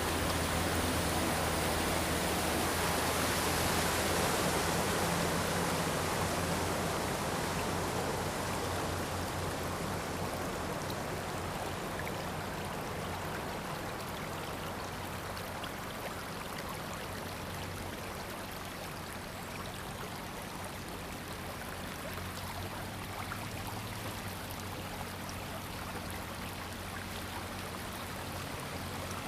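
Floodwater rushing and flowing steadily, a little louder in the first few seconds and easing slightly after that, with a faint steady low hum underneath.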